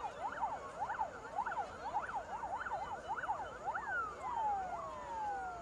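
Emergency vehicle siren in a fast up-and-down yelp, the overlapping sweeps coming about twice a second. About four seconds in the sweeping stops and the pitch slides steadily down as the siren winds off, a second falling slide following a second later.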